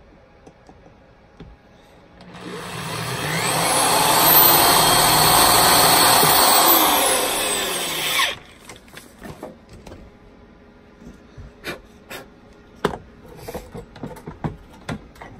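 Corded electric drill run under the trigger for about six seconds, speeding up at the start and cutting off near the middle. After it come scattered light clicks and knocks of the drill and parts being handled.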